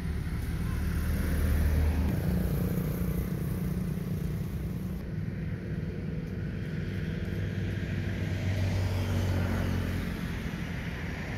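Low, steady rumble of a running motor-vehicle engine, with a faint hum above it.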